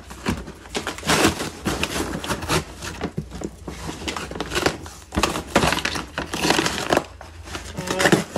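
Cardboard shipping box being opened by hand: the flaps are pulled back and scraped, with rustling and crinkling in irregular bursts.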